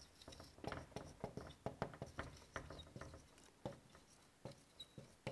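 Marker pen writing on a whiteboard: faint, quick scratchy strokes and taps, busiest over the first three or four seconds, then a few isolated ticks.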